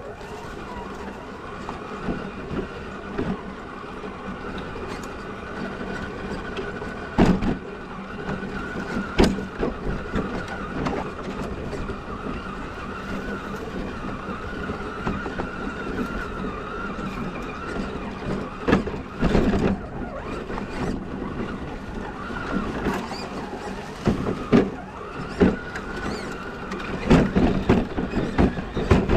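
Electric motor and drivetrain of an Element RC Enduro Trailrunner scale crawler whining steadily, picked up close by a camera mounted on the truck, with several sharp knocks and clatters as the chassis bumps over the trail.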